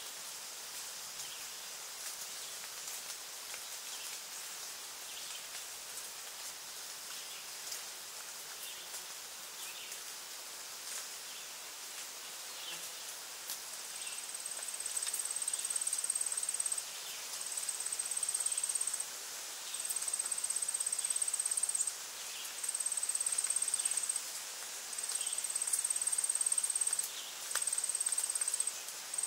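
An insect's high, steady buzzing trill, starting about halfway through and repeating in phrases of about two seconds with short breaks. Beneath it is a steady outdoor hiss with faint scattered chirps.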